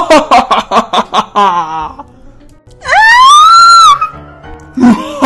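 An exaggerated villain's cackle in rapid 'ha-ha-ha' pulses, then a high-pitched scream of 'Ah!' about three seconds in, held for about a second; the cackle starts again near the end.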